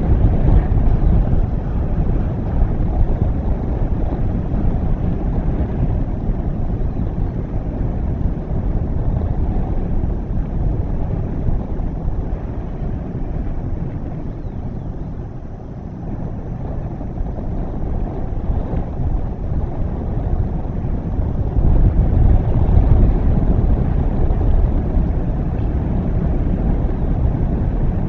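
Wind buffeting an outdoor camera's microphone: a low, rumbling rush that swells and eases in gusts, dipping about halfway through and strongest a little after that.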